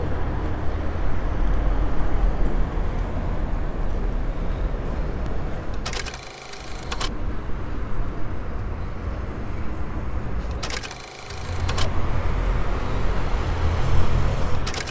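Steady low outdoor rumble of road traffic, dipping briefly twice, about six and eleven seconds in.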